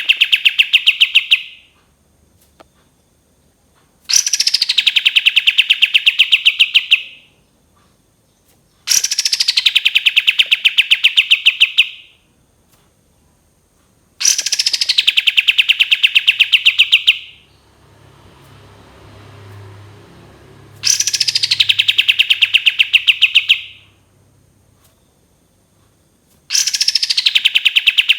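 Kapas tembak songbird repeating one loud song phrase about every five to six seconds. Each phrase opens with a quick falling whistle and runs into a fast, even trill of sharp notes lasting about three seconds. A faint low rumble comes in one gap about two-thirds of the way through.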